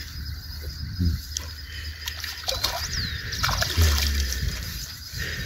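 Creek water splashing and sloshing at the bank as a common carp is let go by hand and kicks free into the water.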